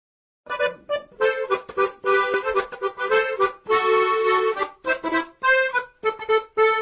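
Accordion music: a bouncy tune played in short phrases of chords, starting about half a second in.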